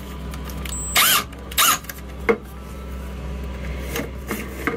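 Cordless drill with a twist bit in a hole in the cast metal steering gear housing, its trigger pulsed twice briefly so the motor whirs up and down each time, followed by a single click.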